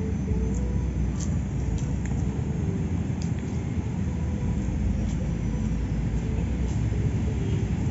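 Steady low rumble with no clear events, and a few faint ticks now and then.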